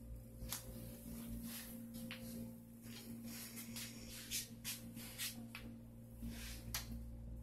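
Steady electrical hum of operating-room equipment, with a few scattered light clicks and rustles over it.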